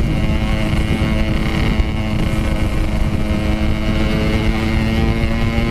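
Motorcycle engine running steadily under way, its pitch rising slowly as it gently gains speed, with wind rumbling on the helmet camera's microphone.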